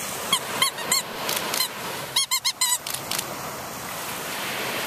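Rubber squeaky toy squeezed over and over in short squeaks, with a quick run of several just past two seconds in; the squeaking stops after about three seconds. Steady surf hiss behind it.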